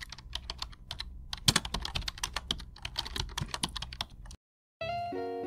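Rapid, irregular computer keyboard keystroke clicks, a typing sound effect that stops about four and a half seconds in. After a short gap, plucked-string background music starts near the end.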